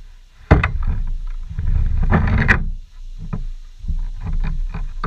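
Utility knife and gloved hands working on a dead snake on a vinyl cover: a sharp click about half a second in, a scraping rustle around two seconds in, then scattered small clicks, over a steady low rumble of wind on the microphone.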